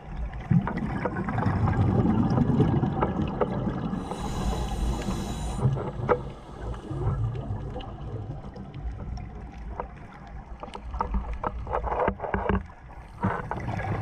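Scuba diver breathing through a regulator, heard underwater through the camera housing: exhaled bubbles rumbling and gurgling in surges, with a hiss of inhalation about four seconds in and small clicks throughout.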